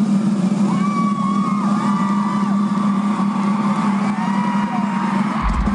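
Arena concert crowd screaming with many high, gliding voices over a steady low drone from the sound system. A deep bass comes in near the end.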